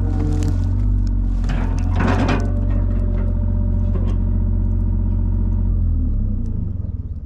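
An engine running steadily, with a short burst of rattling noise about two seconds in; near the end it winds down and cuts out.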